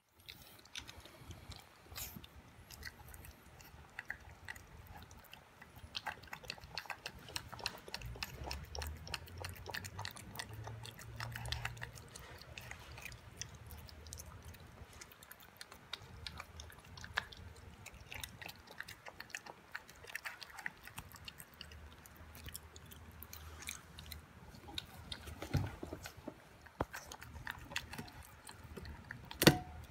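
Boston Terrier puppy eating a raw beef, yogurt and vegetable dinner from a stainless-steel bowl: many small wet chewing and biting clicks. One sharp knock near the end.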